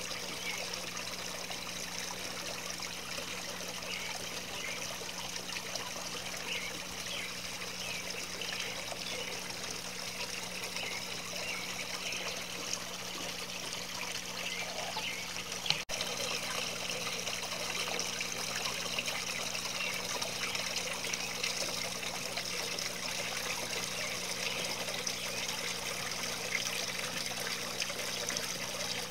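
Water steadily trickling and splashing down small garden fountains, a rock waterfall fountain and a statue fountain, with a steady low hum underneath. About halfway through there is a brief dropout, after which the water is slightly louder.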